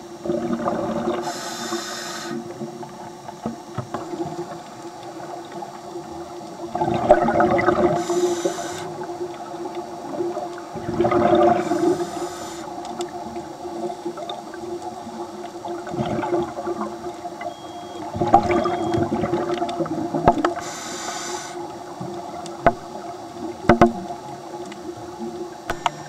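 A scuba diver's regulator breathing underwater: a short hiss on each inhale and a louder bubbling rush on each exhale, every few seconds, over a steady low hum. A few sharp clicks come near the end.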